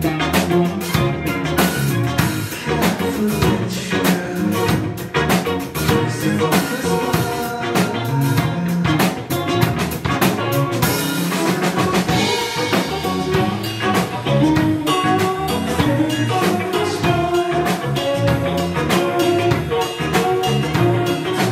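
Live band music: a drum kit beating steadily under electric guitar, with a cymbal wash about halfway through.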